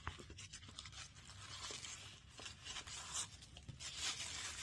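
Zipper of a small camera carrying case being drawn open in several short pulls, with light rustling and handling of the case.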